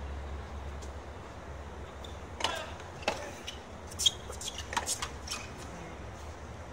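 Tennis point on a hard court: racket strikes on the ball and ball bounces, a handful of sharp knocks spread from about two to five and a half seconds in, over a steady low background hum.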